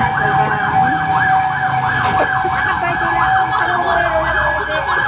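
Emergency vehicle sirens responding to a fire: one siren sweeps up and down in a fast yelp, about three cycles a second, over a second, steady siren tone that slowly drops in pitch near the end, with engine rumble beneath.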